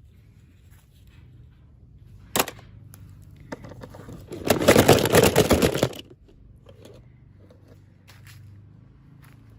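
Unboxing handling noise: a single sharp click about two and a half seconds in. About two seconds later comes a loud run of rapid crackling lasting about a second and a half, as packaging is crumpled or torn open.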